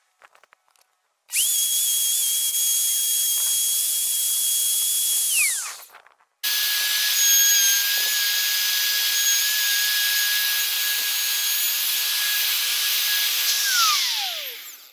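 Handheld electric plunge router running at full speed, routing out recesses in a tabletop of scrap 2x4 lumber. It runs twice, starting about a second in and again about halfway through, and each run ends with the motor's whine falling away as it spins down.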